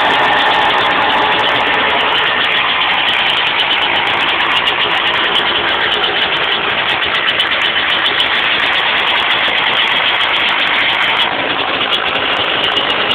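Yamaha YZ125 dirt bike's single-cylinder two-stroke engine running steadily at idle, without revving, its level dipping slightly about eleven seconds in.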